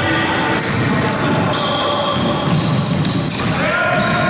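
Basketball game in play: a ball bouncing on the court, with short high-pitched squeals and players' voices over a steady hall noise.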